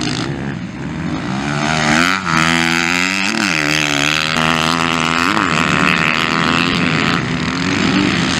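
Motocross dirt bike engines running hard on the track, the revs climbing and dropping several times as the riders work the throttle and shift gears through the corners.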